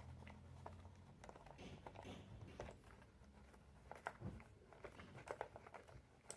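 Near silence with faint, scattered small clicks and taps: a tool and metal parts being handled while the nut holding a fan motor's speed switch is taken off.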